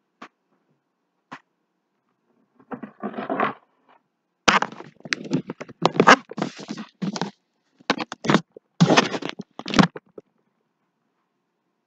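Handling noise from a camera being picked up and turned around: two light clicks, then several seconds of irregular scraping, rubbing and knocking against the microphone.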